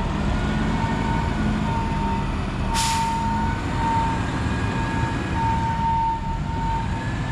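Heavy tow truck's diesel engine running as it pulls the lifted school bus away, a steady low rumble with a steady high whine over it. A brief hiss of air comes about three seconds in.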